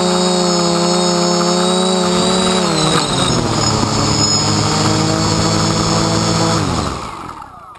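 DJI F450 quadcopter's electric motors and propellers buzzing steadily, heard close up from the frame-mounted GoPro. The pitch drops about three seconds in as it lands on the path. It runs lower for a few seconds, then spools down and stops near the end.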